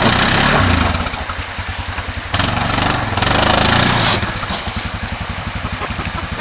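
Yamaha Rhino side-by-side's single-cylinder engine working under load as it crawls over creek rocks, revving up in two surges, at the start and again from about two and a half to four seconds in, then settling back to a steady low putt.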